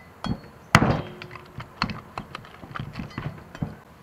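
A cleaver chopping through pork ribs on a wooden chopping board. There is a light knock, then one hard chop about a second in, followed by a series of lighter knocks and taps from the blade on the board.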